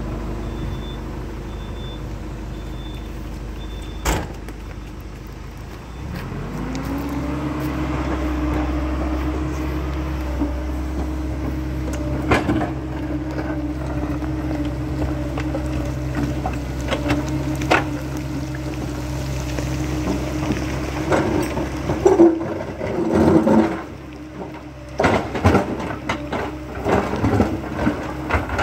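Crawler excavator's diesel engine running steadily, a sharp click about four seconds in, then the engine speeds up to a higher steady pitch about six seconds in. Near the end the bucket knocks and scrapes against rock in a run of irregular bangs.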